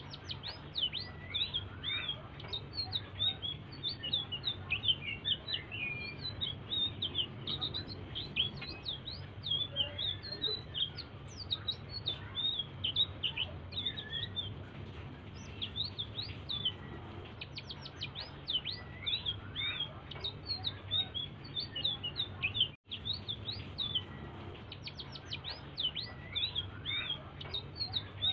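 A selendang biru songbird in full song: a continuous stream of quick high chirps and short downward-sweeping whistles over a low steady hum. The sound cuts out for an instant about three-quarters of the way through.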